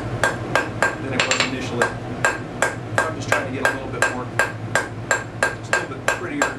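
Hammer striking a hot steel bar on an anvil in a steady rhythm, about four blows a second, each blow with a short metallic ring. A steady low hum runs under the blows.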